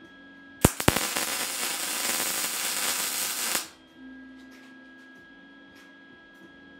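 Electric welding arc on steel: it strikes with a few sharp cracks, then runs as a steady crackling hiss for about three seconds and cuts off suddenly, one short weld on a small steel bracket.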